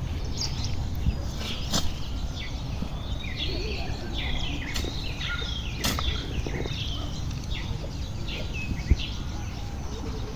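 Small birds chirping in many quick, short notes over a steady low outdoor rumble, with a few sharp clicks in between.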